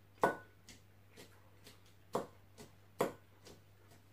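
A metal fork clicking against a ceramic salad bowl three times while picking up shredded cabbage, the first with a short ring. Fainter clicks of chewing come between.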